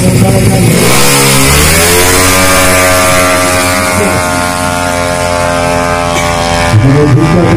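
Tuned 200cc automatic scooter drag bike (single-cylinder four-stroke) revving at the start line, then launching at full throttle: the engine note climbs and holds a steady high rev as the bike runs away down the strip. Near the end, short choppy revving blips start up again.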